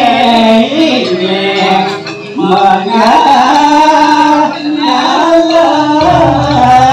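A voice singing a gliding, ornamented line of Balinese drama song, accompanied by a gamelan orchestra. Steady low gamelan tones drop away about a second in and come back near the end.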